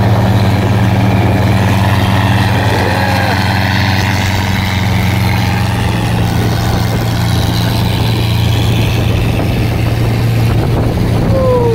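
Boat engine running steadily at speed: a constant low drone, with water rushing and wind noise over it.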